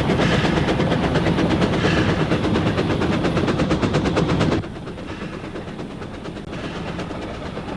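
Train running on rails, a fast, even clatter of wheels on the track, which drops suddenly to a quieter rumble about four and a half seconds in.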